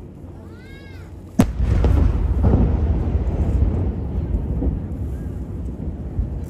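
Aerial firework shells bursting: one sharp bang about a second and a half in, followed by a long low rumble and echo that slowly fades, then a second sharp bang at the very end.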